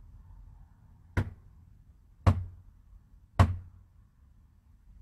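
Three knocks of a fist on a door, about a second apart, each a little louder than the last.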